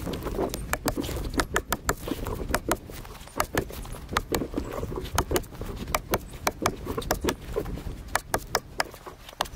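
Irregular sharp clicks and knocks, several a second at times, from hand tools working at a log, over rustling in dry leaf litter.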